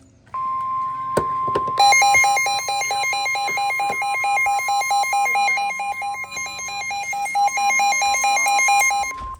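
NOAA Weather Radio's steady 1050 Hz warning alert tone, the signal that a warning message is about to be read. From about two seconds in, an electronic alarm joins it, beeping rapidly in a two-pitch warble at about five beeps a second. Both stop abruptly together near the end, with a single click about a second in.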